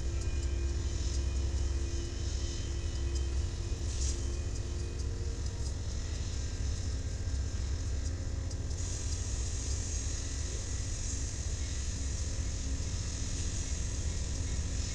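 Diesel locomotives and a train in a rail yard: a steady low rumble, with a steady hum that fades out about five seconds in and a hiss that comes up about nine seconds in.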